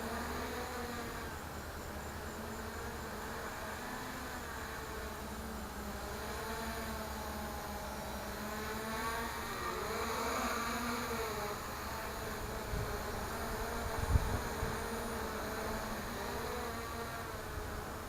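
Sunnysky brushless motors of an FPV quadcopter buzzing with a whine whose pitch wavers up and down with the throttle; the owner says the front-left Sunnysky does not sound happy. One sharp thump about three-quarters of the way through.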